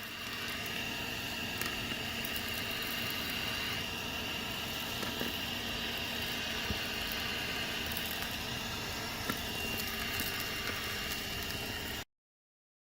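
THISWORX 12-volt handheld car vacuum running steadily: a motor hum with a high, even whine. It stops abruptly near the end.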